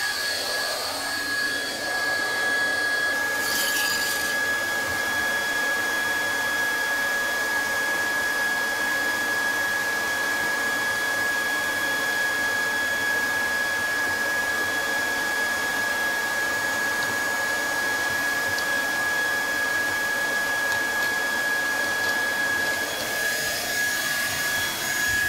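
Hot-air plastic welding gun running steadily: the blower's even rushing hiss with a constant high whine. A brief burst of higher hiss comes about three seconds in.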